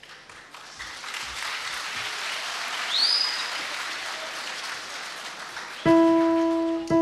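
Audience applauding, with a short rising whistle about halfway through. Near the end an electronic keyboard strikes a single sustained note twice, about a second apart.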